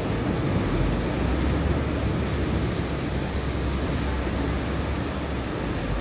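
Ocean surf breaking and washing on the shore: a steady wash of noise with a deep low rumble.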